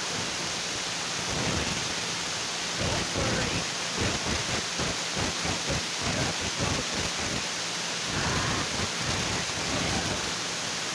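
Wind buffeting the microphone: irregular low rumbling gusts over a steady rushing hiss.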